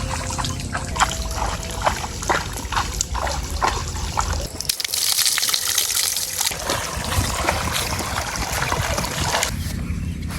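Peeled potatoes being washed in water: sloshing and trickling, with many light knocks in the first half and a hissing pour of water about five seconds in.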